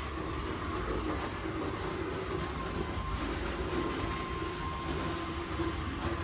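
Merlin garage door opener motor running, driving a sliding garage door along its overhead track: a steady whine over a rumble.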